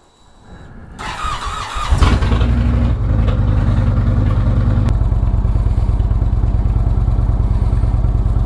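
Indian Roadmaster's V-twin engine being started: the starter cranks for about a second, then the engine catches about two seconds in and settles into a steady, loud, throbbing idle.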